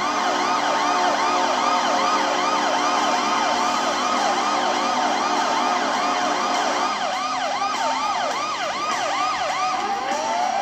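Washington Capitals goal horn sounding a steady chord, with a fast siren-like whoop that rises and falls about two to three times a second over it. The horn chord drops out about seven seconds in while the whooping continues, and a long rising glide starts near the end.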